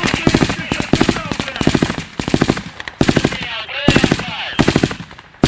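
Several bursts of automatic gunfire, rapid shots in quick succession with brief gaps between bursts. Men's voices can be heard between the bursts.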